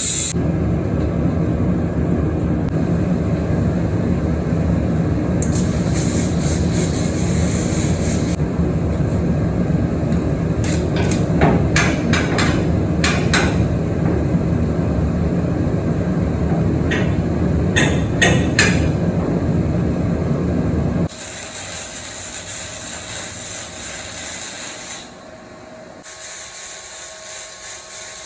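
Arc welder laying a weld on steel, a steady rough noise with a few clusters of sharp pops, cutting off abruptly about three quarters of the way through.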